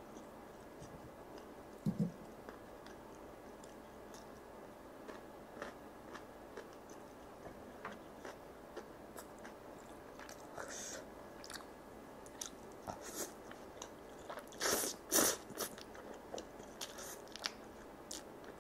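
Wet chewing and biting of sticky sauced spicy chicken, rice cakes and instant ramen noodles, with many small mouth clicks throughout and a few louder mouthfuls of noodles about two-thirds through.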